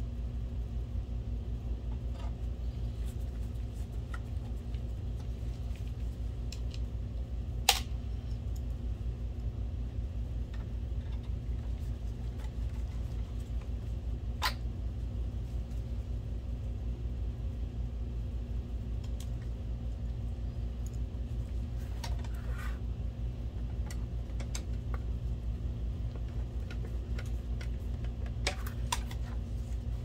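Screws being driven into a projector's sheet-metal chassis with a hand screwdriver: a few scattered sharp clicks, the loudest about eight seconds in, over a steady low hum.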